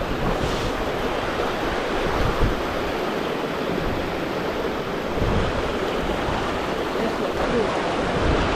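A river rushing: a steady, even rush of flowing water.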